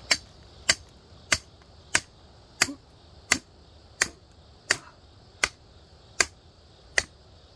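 A hammer striking the head of a 40 cm steel ground pin, driving it into the soil. About eleven sharp, evenly spaced blows, roughly one every two-thirds of a second.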